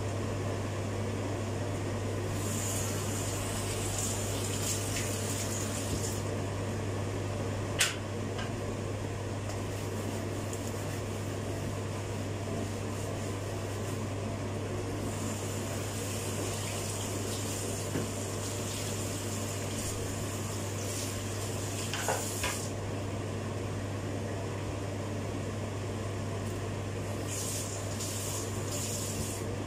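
Kitchen tap water running into the sink in three spells of a few seconds each, over a steady low hum. A single sharp click about eight seconds in.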